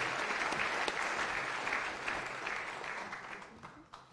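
Audience applauding, the clapping fading away in the last second or so.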